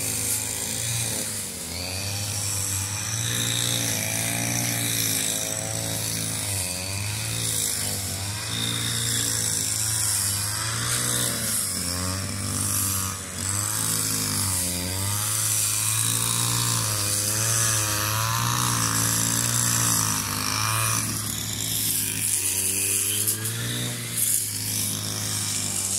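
Two-stroke brush cutter (string trimmer) engine running while cutting roadside grass, its pitch rising and falling continually as it works through the grass.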